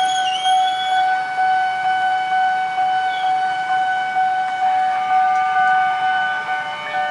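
Railway level-crossing warning alarm sounding a steady electronic tone, warning of an approaching train; a second tone joins about five seconds in.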